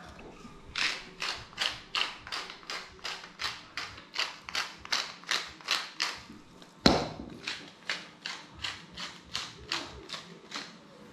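Seasoning being added to a camp-oven pot: a steady run of quick, even strokes, about three or four a second, with one louder knock a little past halfway.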